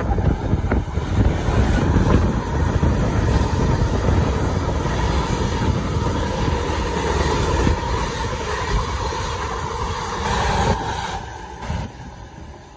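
South Western Railway electric multiple unit passing close along the platform: a steady, loud rush of wheels on the rails that fades away about eleven seconds in as the train draws off.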